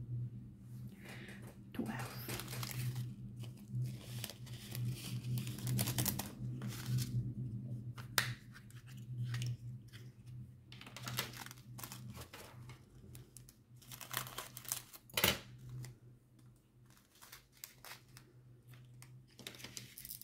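Small plastic zip bags of diamond-painting drills crinkling and rustling as they are handled and sorted, with a sharp click about eight seconds in and another about fifteen seconds in.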